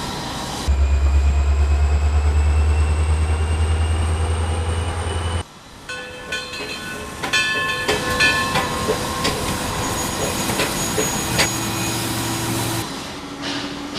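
Layered train sound effects: a loud, pulsing low engine rumble with a faint slowly rising whine, which cuts off suddenly about five seconds in, followed by a busier run of clicks, clanks and short tones.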